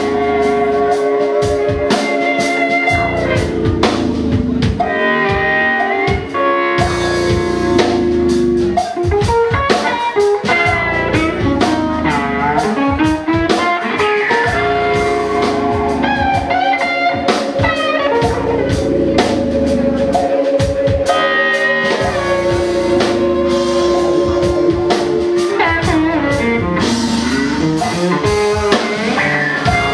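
Live band playing a psychedelic jazz/drum'n'bass groove: electric guitars over a drum kit and percussion, with long held guitar notes that bend and glide in pitch.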